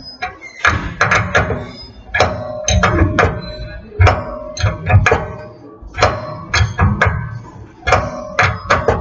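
A wrench tightening a nut down onto washers to draw a new wheel stud into the hub: bursts of metallic clicking and clinking in repeated strokes, about one stroke every one and a half to two seconds, with a ringing metal tone.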